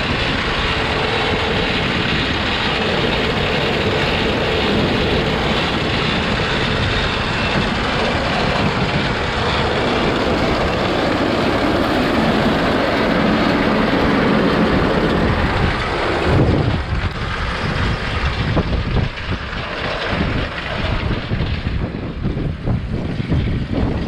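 Farm machinery engine running steadily under load. About two-thirds of the way through, the sound turns choppier and uneven.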